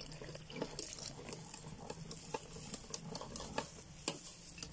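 Wire whisk stirring a flour-and-water batter in a plastic bowl: faint, irregular clicks and scraping of the wires against the bowl, with water being poured in at the start.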